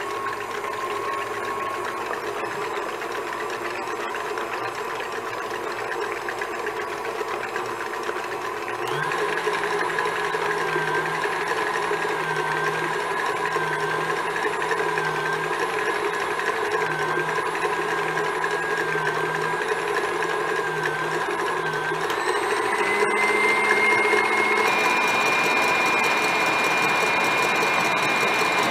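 KitchenAid stand mixer whipping egg whites with its wire whip, the motor whining steadily. The speed is stepped up about nine seconds in and again past twenty seconds, the whine rising in pitch and getting louder each time.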